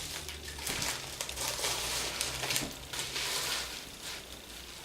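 Rustling and crinkling of a mail package and its packing being opened and handled by hand.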